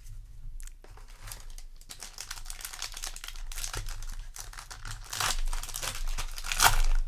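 Foil trading-card booster pack wrapper crinkling as it is handled and torn open, loudest about five seconds in and again near the end.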